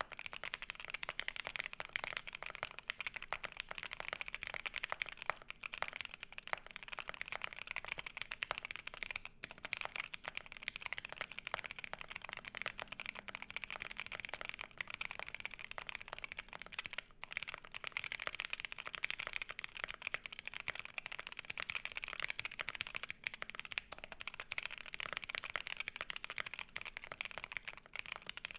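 Continuous fast typing on a custom mechanical keyboard with lubed C3 Tangerine linear switches, a POM plate and gasket mount. The keycaps change from SW Graphite to GMK Amethyst ABS keycaps about seventeen seconds in, and back to SW Graphite near the end.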